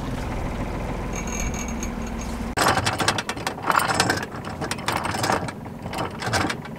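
A sailboat's engine runs steadily at low speed. About two and a half seconds in, anchor chain starts running out over the bow roller in a long run of rattling metal clinks and clatters.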